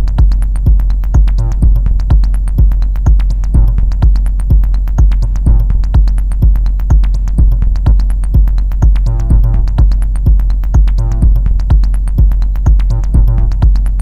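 Techno beat played live on a Korg Volca Sample: a heavy kick drum about twice a second under ticking hi-hats, with a pitched sample pattern that drops out and comes back in about nine seconds in and again near the end.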